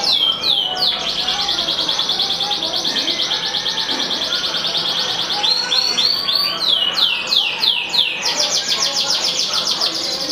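Yellow domestic canary singing continuously: long, rapid trills alternating with runs of sweeping down-slurred notes, at the start and again about six to eight seconds in.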